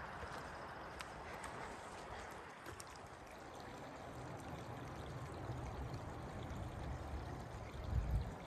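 Small mountain creek babbling steadily as it trickles over rocks, with a low rumble building from about halfway and a brief low thump near the end.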